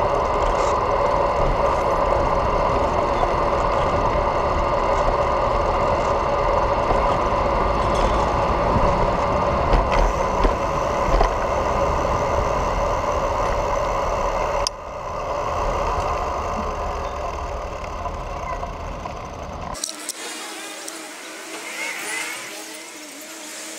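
Steady road and wind noise of a ride along a city street, with a low rumble and a constant hum. The sound drops and changes about fifteen seconds in, and about twenty seconds in the low rumble cuts out, leaving a thinner hiss of passing traffic.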